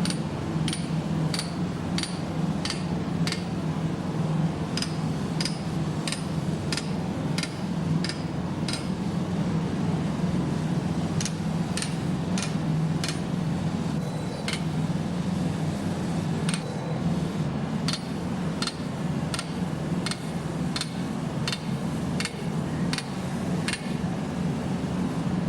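Steel hammer repeatedly striking iron, with sharp metallic blows about twice a second that ring briefly, in runs with a short pause. A steady low hum runs underneath.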